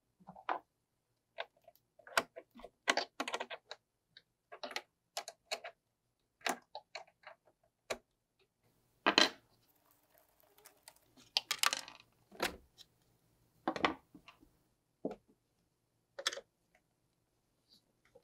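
Screwdriver and hands working on the plastic case and chassis of an old portable Sony TV during disassembly: irregular clicks, taps and clatter of metal on plastic, busiest around the middle.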